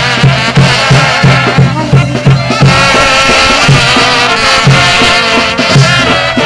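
Traditional folk music with a steady drum beat of about three strokes a second under a wavering melody line.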